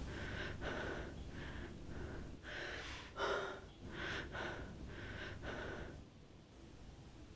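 A woman's short, heavy breaths, about ten in quick succession, that stop about six seconds in.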